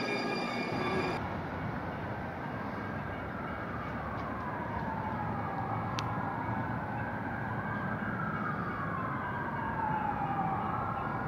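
A siren wailing, its pitch sweeping slowly down and back up, each sweep taking a few seconds, over a steady low hum of the city. In the first second a light rail train's wheels squeal as it moves, cut off abruptly.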